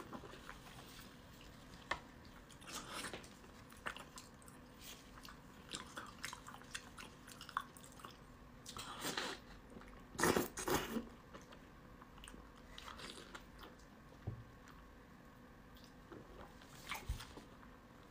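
A person biting and chewing whole fish in spicy sauce, with irregular short mouth clicks throughout and the loudest cluster of them about ten seconds in.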